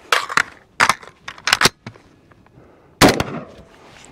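A string of rifle shots from an IWI Carmel 5.56 mm gas-piston rifle, fired in uneven groups with short pauses between them. The last shot comes about three seconds in.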